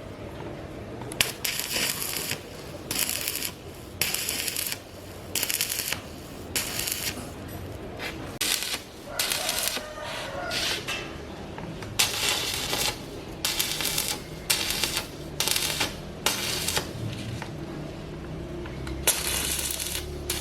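A run of short, hissing scraping strokes, roughly one a second with uneven gaps.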